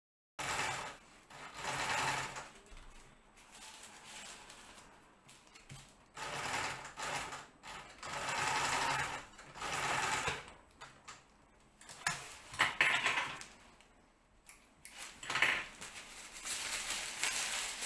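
Home sewing machine stitching kite fabric in several short runs, stopping and starting, with the rustle of the nylon kite fabric being pulled and repositioned between runs.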